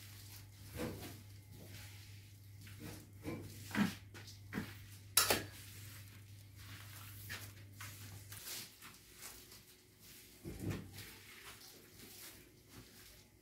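Scattered light knocks and clatters of mopping gear being handled during floor mopping, the loudest a few seconds in. A low steady hum runs underneath and stops about eight and a half seconds in.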